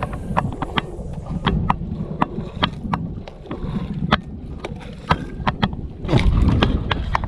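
Small outrigger boat rocking on the sea, with irregular sharp knocks and slaps against the hull and outrigger over a low rumble of water and wind. A louder rush of water comes about six seconds in.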